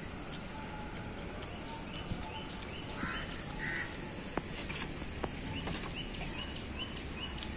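Outdoor ambience with a crow cawing twice about three seconds in and a small bird chirping in a quick repeated series through the second half, over a steady background hiss.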